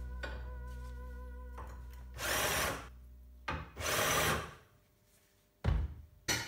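Cordless drill with a countersink bit spinning up in two short bursts, about two seconds apart, as it cuts into a metal block held in a vise. A sharp knock near the end as the drill is set down on a steel plate.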